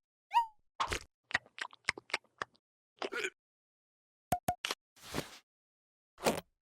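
Cartoon sound effects: a short falling squeak, then a quick run of plops and pops, followed by a few more scattered pops, two short pips and a brief hiss, with silent gaps between.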